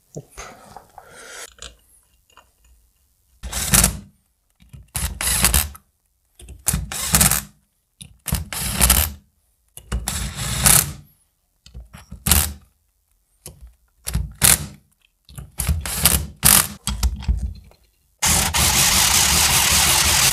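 Makita cordless driver running the ring-gear bolts into a differential carrier in a series of short bursts, about a dozen, each under a second. Near the end a bigger power tool takes over on the bolts and runs steadily for about three seconds.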